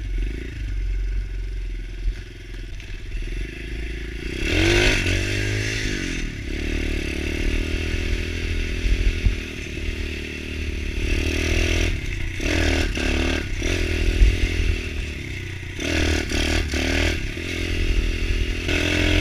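Pit bike engine running under way, revving up and falling back about four seconds in, then opened up again twice in the second half, with some clatter from the bike.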